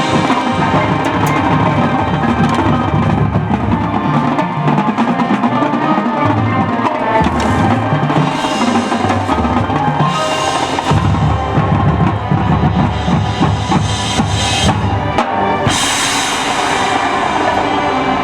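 High school marching band playing a percussion-driven passage of its field show: the drums keep up a dense, rhythmic beat with bass drums, and several bright crashes come in the second half.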